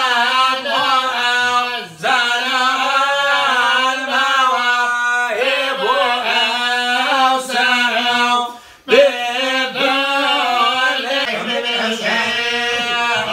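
Unaccompanied male chanting of Arabic religious verse: a lead voice sings long, wavering, ornamented lines over a steady lower held note. There are two short breath breaks, at about two seconds and near nine seconds.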